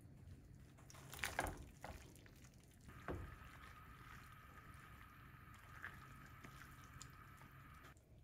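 Tongs stirring and tossing ribbon pasta in a pan of cream sauce: wet squishing and stirring, loudest about a second in and again at about three seconds.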